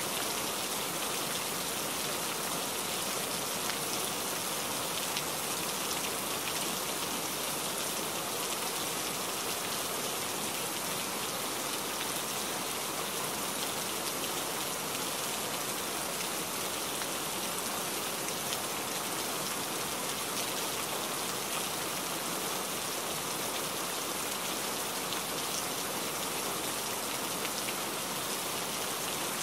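Steady rain hitting a truck's windshield and cab, heard from inside the cab as a constant hiss with a fine patter of drops.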